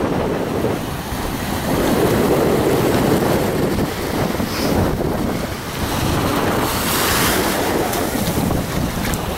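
Small waves washing in over the sand at the water's edge, with wind buffeting the microphone. The sound swells and eases, and the wash hisses brighter about two-thirds of the way through.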